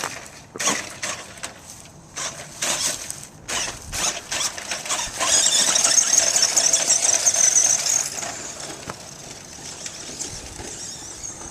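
Tamiya 1:12-scale electric RC monster truck's motor and gearbox whining. There are short, crackly throttle blips in the first few seconds, then a steady high-pitched whine under throttle from about five to eight seconds in, which then fades as the truck drives off.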